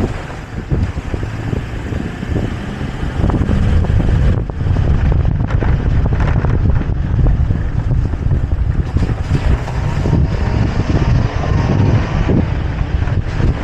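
Toyota Tacoma pickup driving along a rutted dirt trail: a steady low rumble of the truck and its tyres over dirt and stones, with scattered knocks and wind buffeting the microphone. It gets louder about four seconds in.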